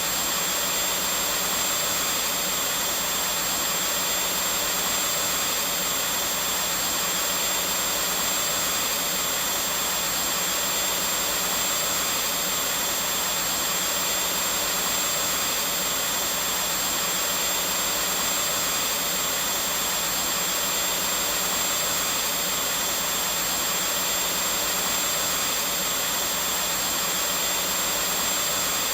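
Vacuum cleaner running steadily: a constant whooshing hiss with a thin high whine, unchanging in level.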